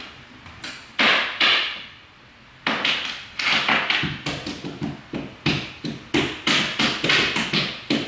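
Plastic keycap clacking: a hollow SA-profile spacebar keycap handled and tapped in the hands, sharp clicks and knocks coming about two to three a second, with a pause about two seconds in.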